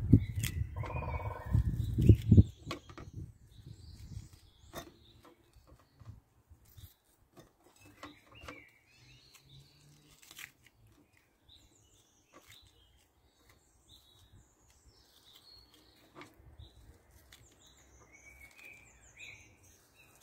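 Onion layers being pulled apart by hand, with occasional crisp snaps, under small birds chirping and singing. A low rumbling noise fills the first two seconds or so.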